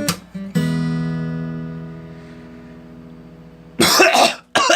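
Acoustic guitar: a final chord strummed about half a second in, left ringing and slowly fading. Near the end, a person coughs loudly and clears their throat.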